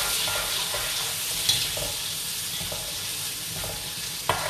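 Blended chilli paste frying in oil with a steady sizzle as it is stirred, with short scraping strokes and a sharp knock about four seconds in. The paste is being cooked until the oil separates from it.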